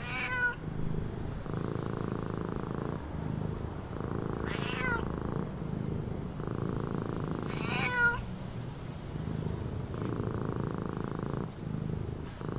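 Domestic cat purring steadily, the purr swelling and easing with each breath. Two short, high, wavering cries break in, about four and a half seconds in and again about eight seconds in.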